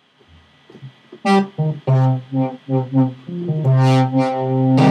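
Sylenth1 software synthesizer playing its 'Fart Bass' preset: a quick run of short bass notes starting about a second in, then longer held notes that turn brighter near the end.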